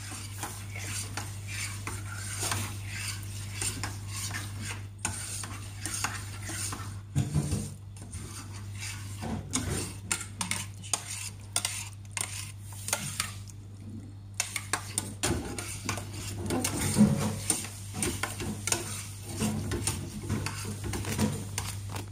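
A metal spoon stirring a thick corn-and-flour mixture in a stainless steel saucepan, with irregular scraping and clinking against the pot's sides and bottom throughout.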